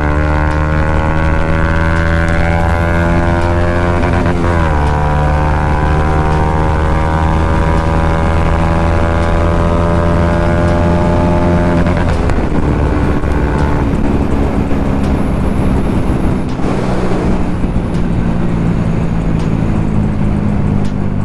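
Bajaj Pulsar NS200's single-cylinder engine running at speed through an aftermarket Akrapovic exhaust, a steady drone whose pitch breaks and drops briefly about four seconds in and again around twelve seconds in, as at gear changes.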